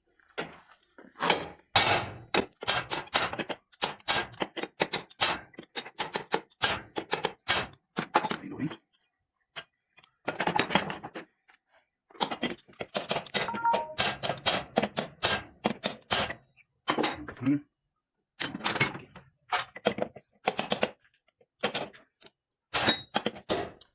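Rapid runs of hammer blows on metal, knocking a stuck lower bearing out of an Electrolux LM08 washing machine's transmission, with a few short pauses between the runs.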